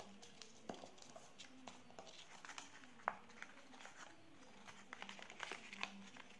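A sheet of colored paper being handled and creased into origami folds: faint crinkling and rustling with scattered small clicks, one sharper click about three seconds in and denser crinkling near the end.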